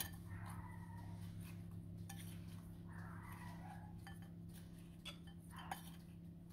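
Faint scraping and light clinks of a metal spoon in a ceramic bowl, tossing cubes of fruit paste in flour, over a steady low hum.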